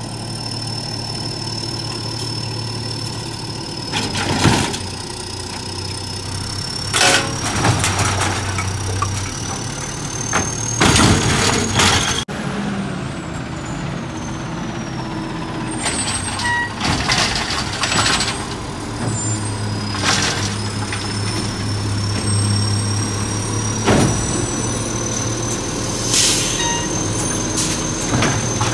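McNeilus natural-gas garbage truck running, with a steady high whine that slowly rises and falls over its engine rumble. Several loud bangs and clanks break in as recycling carts are handled and dumped into the hopper, along with a hiss of air brakes.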